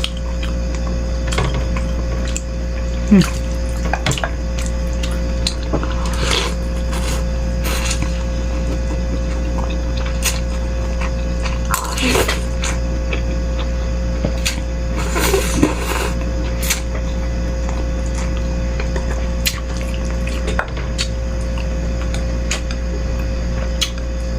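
Close-miked eating of bakso meatball soup: a spoon clinking against the bowl, with a few short slurps of broth about 6, 12 and 16 seconds in, over a steady low electrical-sounding hum.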